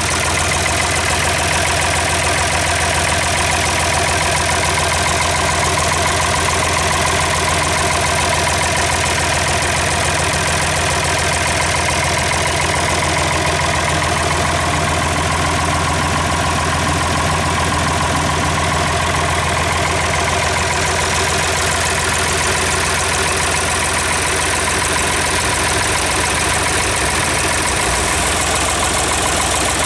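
Ford 4000 three-cylinder diesel tractor engine idling steadily, run stand-alone out of the tractor.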